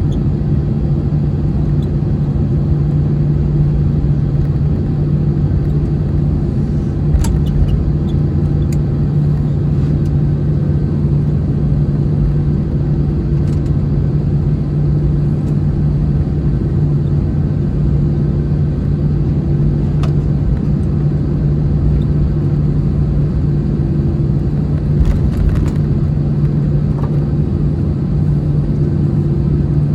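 Steady cabin noise inside an Airbus A321-211 airliner: the CFM56 engines' low hum with a continuous rumble, and a few faint clicks.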